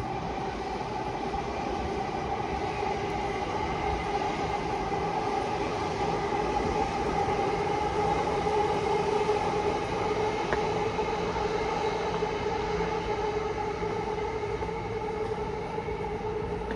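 A train running past, a steady rumble with a humming tone that swells to its loudest about halfway and then eases off.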